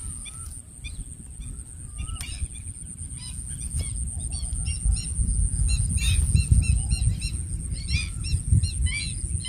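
Many short bird calls, chirping again and again, over wind rumbling on the microphone that grows louder from about halfway.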